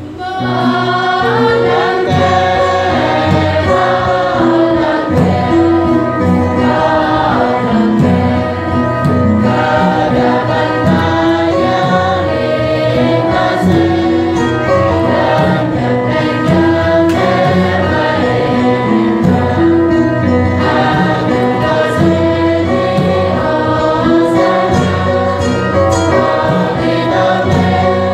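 A choir sings a hymn in the Bahnar language over instrumental backing with steady bass notes; the voices come in about half a second in.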